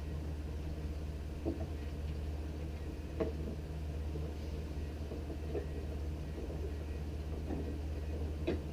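A few faint, short knocks and clicks of cajon pedal parts being handled and fitted together, over a steady low hum.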